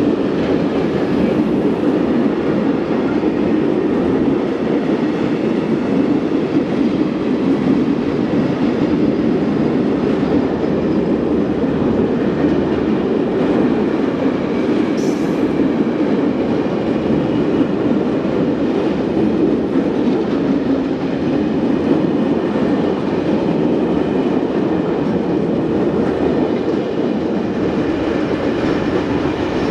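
Freight train of pressurised gas tank wagons rolling past close by: a steady rumble and rattle of steel wheels on the rails, with the clack of wheels over rail joints.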